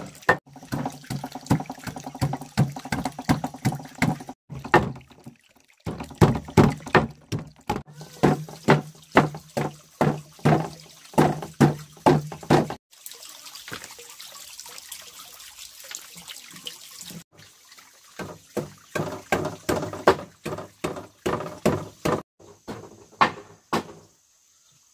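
Runs of quick, sharp knocks, several a second, stopping and starting a few times, with a low steady hum under the first two runs.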